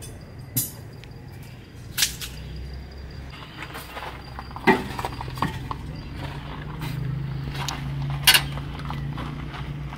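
Several separate sharp knocks and clanks of a steel cooking pot and a metal poker against a wood-burning stove, the loudest one about eight seconds in.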